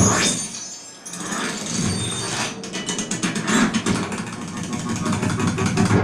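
A Dolby demo trailer's soundtrack played back through Yamaha NS-P51 home-theatre speakers on a Pioneer VSX-323K receiver in Dolby mode: mechanical ratcheting, gear-like sound effects. A loud hit at the start dies down about a second in, then a fast run of clicks builds.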